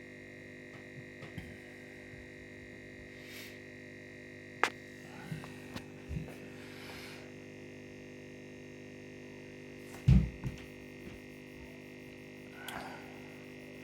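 Steady electrical hum made of several steady tones, broken by a few sharp clicks and a louder low thump about ten seconds in.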